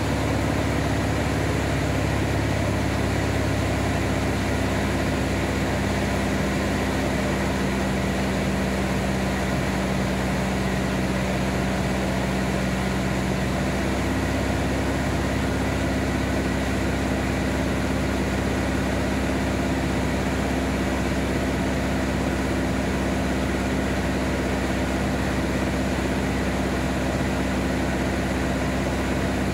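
Van's RV-7A light aircraft's piston engine and propeller droning steadily in flight, with the low tone shifting slightly about halfway through.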